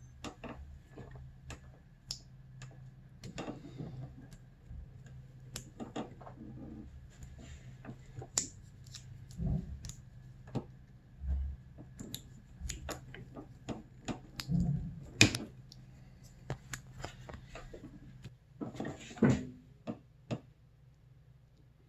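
Hands handling electrical tape wrapped around handlebar wiring: irregular light clicks, taps and rustles, with a few louder knocks, over a steady low hum that fades out near the end.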